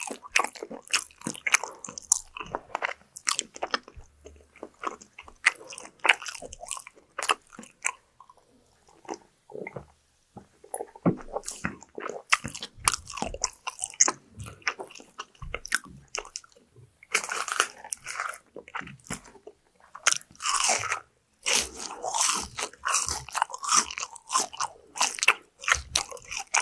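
Close-miked eating sounds: crunchy bites and chewing of crispy fried food, with irregular crackling crunches. They thin out briefly about a third of the way in and come louder and denser in the second half.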